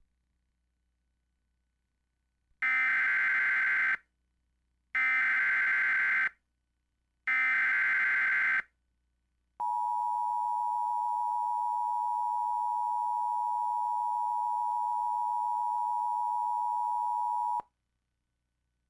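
Emergency Alert System tones: three short, identical bursts of buzzy SAME header data, then the steady two-tone attention signal held for about eight seconds and cut off sharply. This sequence marks the start of a new emergency alert.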